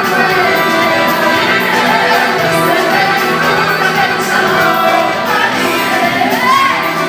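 Live band music with singers on handheld microphones, electric guitar and keyboard playing along; the singing slides in pitch near the end.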